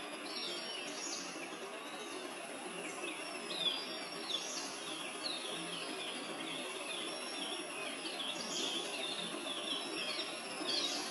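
Wild birds chirping over and over, short sliding high calls, over a steady background of outdoor noise.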